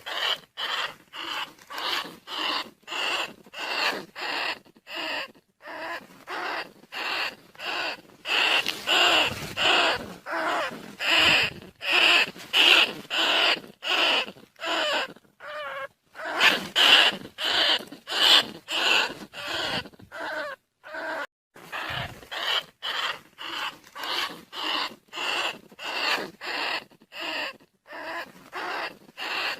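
Rice-field rats and bandicoot rats squealing in a long, even series of short, shrill calls, about two a second: a rat lure call meant to draw rats in.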